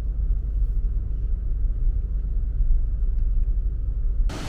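A steady low rumble with no speech. Near the end it cuts abruptly to a loud, even rush of falling water from Rainbow Falls.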